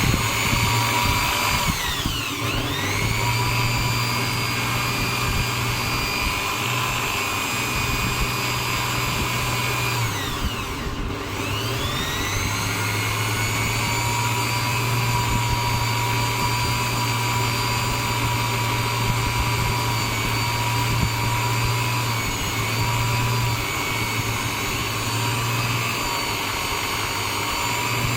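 Electric drill press motor running steadily with a high whine, serving as a makeshift lathe to spin a hardwood dowel. Its pitch sags and comes back up twice, about two seconds in and more deeply around eleven seconds.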